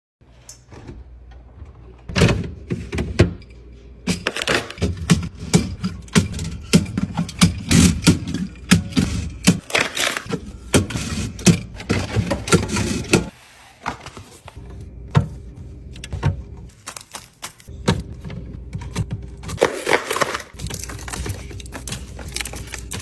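Containers and packaging being handled and set down in quick succession during a restock: many irregular clicks, knocks and rustles, with a brief lull about thirteen seconds in.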